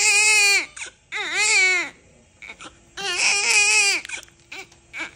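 Newborn baby crying in three loud wails, each rising and then falling in pitch, with short breaths between.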